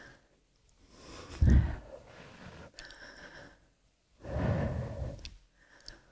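A woman breathing out audibly twice, once about a second in and again about four seconds in, during a standing gymnastics exercise.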